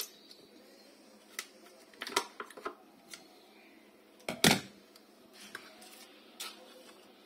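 Scattered light clicks and knocks of small objects being handled, with a louder knock about four and a half seconds in.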